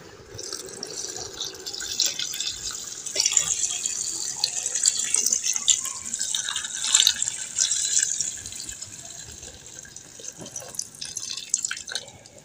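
Chicken stock (yakhni) poured from an aluminium pot through a wire-mesh strainer into a pan of onions, tomatoes and spices: a steady splashing pour that thins to a trickle and scattered drips near the end.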